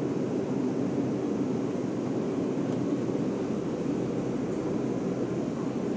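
Steady, even low background din of a supermarket aisle, with no distinct events.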